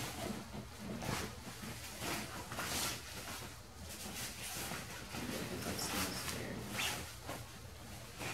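Soft rustling and swishing of fabric as clothes and bag contents are handled, with scattered brief scrapes and no steady rhythm.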